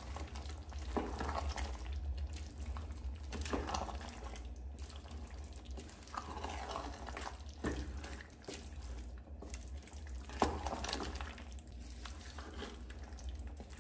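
Wooden spatula stirring mutton in a wet, spiced onion masala in an open pressure cooker, the food sizzling and squelching, with louder scraping strokes every couple of seconds. A steady low hum runs underneath.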